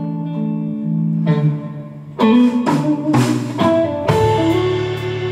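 Live rock band playing an instrumental passage: electric guitar holding chords, then the band comes in louder about two seconds in, with sharp percussive hits every half second or so.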